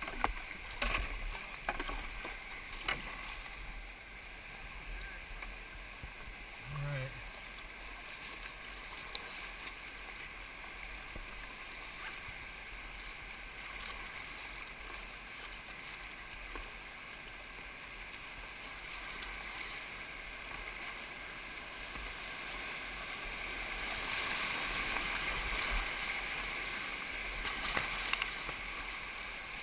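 Whitewater of a class 3-4 rapid rushing past a kayak, with sharp paddle splashes and water slapping the boat in the first few seconds. The rushing grows louder near the end as the boat runs through rougher water.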